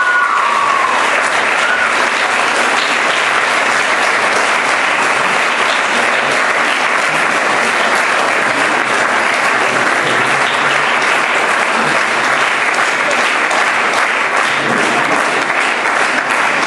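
Audience applauding steadily, with a couple of short whistles in the first two seconds.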